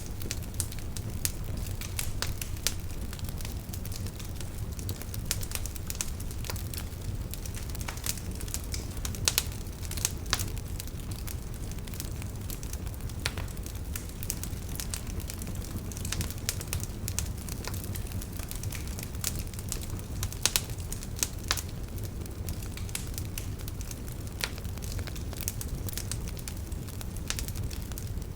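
Wood fire crackling, with a steady low rumble of the flames under irregular sharp pops and snaps of burning wood.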